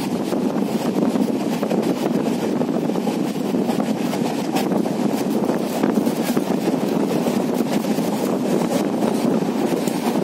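A train running along the line, heard from inside through an open window: a steady rumble of wheels on rail mixed with rushing air, with light scattered clicks.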